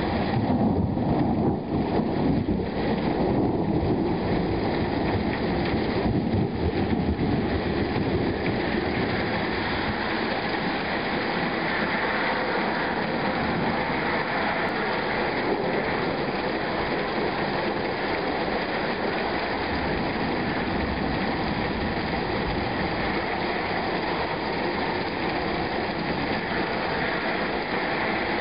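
Steady rain during a thunderstorm, with thunder rumbling low in the first several seconds before the rain hiss settles and runs on evenly.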